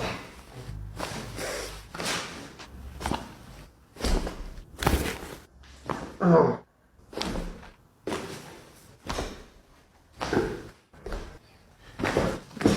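Chiropractic adjustments: a run of sudden thumps and cracks, roughly one a second, as the chiropractor thrusts on the patient's joints. A person makes a brief vocal sound about six seconds in.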